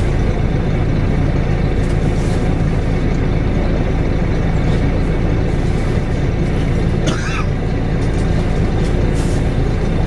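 Interior of a Volvo B7RLE single-deck bus, its six-cylinder diesel engine running with a steady low drone. About seven seconds in there is a brief, wavering high-pitched screech.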